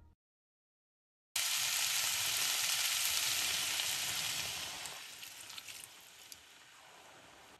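Food sizzling in hot fat in a pan on the stove. The sizzle starts suddenly about a second in, then dies down a few seconds later to a few scattered crackles.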